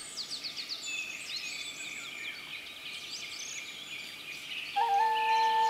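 Small songbirds chirping and singing. About a second before the end, a double ocarina comes in with a long held note, two steady tones sounding together, and it is louder than the birds.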